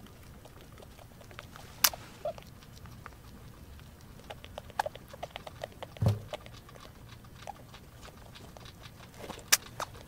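A group of rats feeding in a cage: quick, irregular crunching and clicking. Sharper clicks come about two seconds in and near the end, and there is a soft thump about six seconds in.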